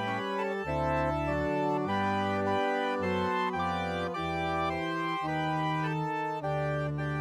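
Organ postlude closing a church service: sustained chords moving every second or so over held bass notes.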